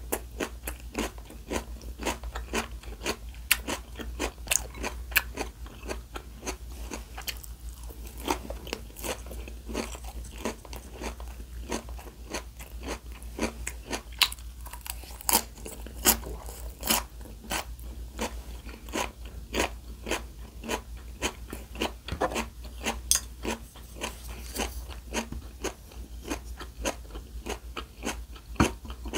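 Close-miked eating: crisp, irregular crunching and chewing of crunchy food, several sharp crunches a second.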